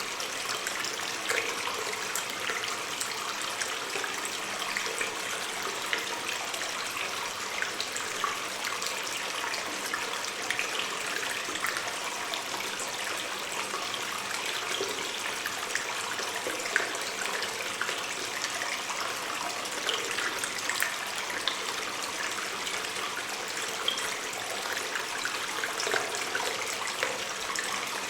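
Water stream trickling and splashing steadily inside a cave, with many small drips and splashes over a continuous rush of flowing water.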